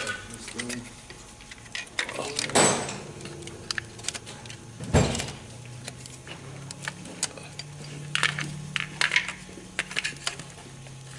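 Small metal clinks and knocks of parts and hand tools being handled while fitting an automatic transmission's internal wire harness and valve body. There are scattered light clicks, with two louder knocks about two and a half and five seconds in.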